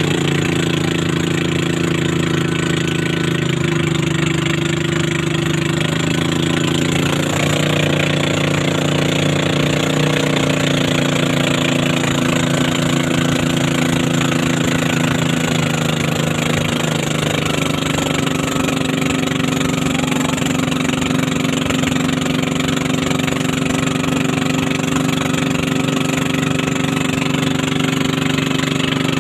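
Boat engine running steadily while the boat is under way, its pitch shifting to a new steady level a couple of times.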